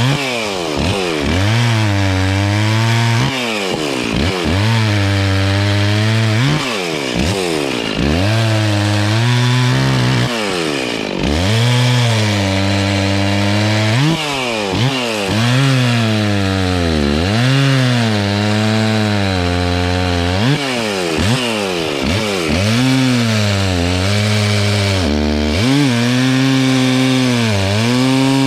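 Two-stroke chainsaw cutting wood under load, its engine pitch repeatedly dipping as the chain bites and climbing back again every second or two.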